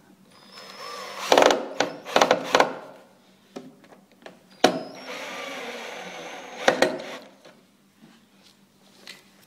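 Cordless drill-driver with a Phillips bit driving two screws into a panel. The motor runs in two spells of about two seconds each, with sharp clicks and knocks as the bit turns and the screws seat.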